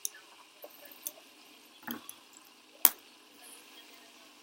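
Fidget spinners being handled: a few scattered sharp clicks and taps, the loudest about three seconds in.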